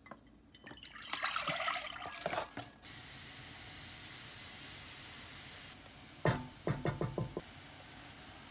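Broth poured from a pouch into a stone-coated cooking pot, splashing for about two seconds, then a steady hiss. Near the end come a few quick knocks.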